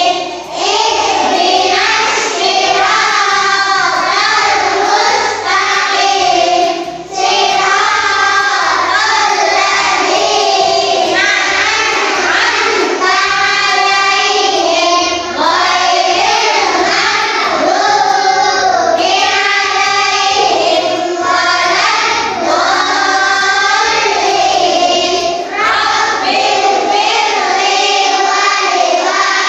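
A class of young children singing together in chorus, with a few brief pauses between lines.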